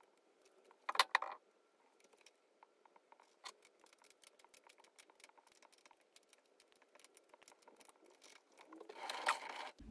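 Small metal parts clicking and knocking as a slide cover is fitted to a mini lathe's slide and tightened with a small spanner: a sharp double clack about a second in, then faint light ticks, and a short rustle near the end.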